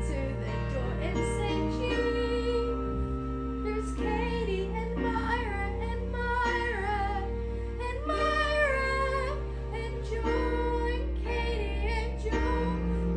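A young girl singing a musical-theatre song with vibrato over an instrumental backing track.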